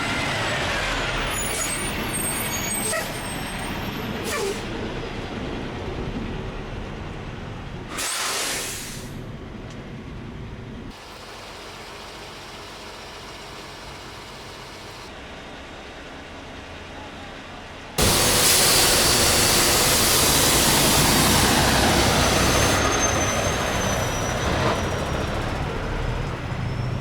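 Semi-truck car hauler running, with a short loud hiss about eight seconds in and a longer, louder stretch of hiss from about eighteen seconds, typical of air brakes.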